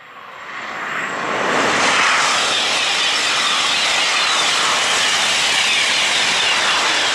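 TGV Duplex double-deck high-speed train passing at speed: a rush of air and wheel noise that swells over the first two seconds, then holds steady and loud.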